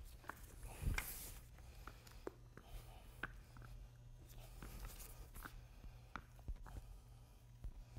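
Faint squeegee strokes through wet metallic epoxy on a concrete floor, with scattered small clicks as spiked shoes step through the coating, over a low steady hum.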